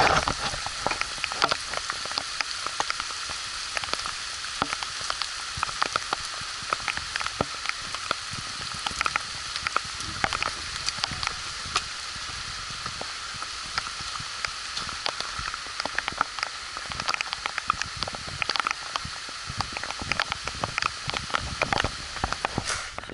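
Steady rain falling, with a constant hiss and many individual drops ticking sharply on a nearby surface. It cuts off suddenly near the end.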